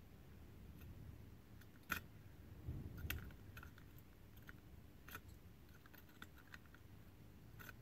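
Faint, scattered clicks and taps of hand soldering: a soldering iron tip and solder wire working the through-hole joints of a small circuit board. The sharpest click comes about two seconds in, with a dull bump just after three seconds.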